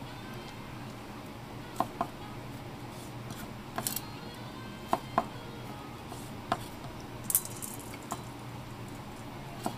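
Kitchen knife knocking on a cutting board as small kibinago fish are cut, about nine sharp knocks at uneven intervals.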